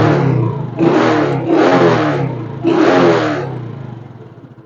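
Motor vehicle engine revved in repeated throttle blips, about four surges roughly a second apart, dying away near the end.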